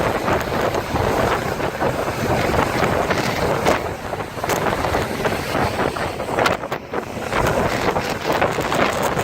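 Wind buffeting the microphone over the steady rushing noise of a boat running on open water, with a few brief sharp knocks.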